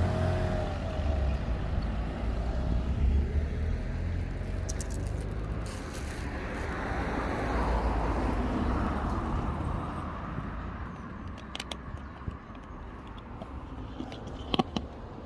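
Road traffic: a car passing on the road, its engine and tyre noise swelling to a peak about halfway through and then fading. A few sharp clicks near the end.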